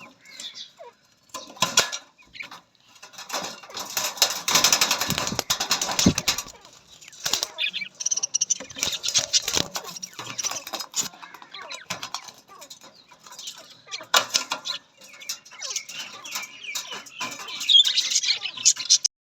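Budgerigars chirping and chattering, with bursts of wing flapping. The sound stops abruptly near the end.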